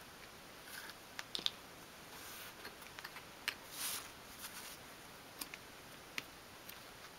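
Faint, scattered light clicks and taps of thin wooden pieces being handled and set down on a cutting mat, with a couple of soft rustles.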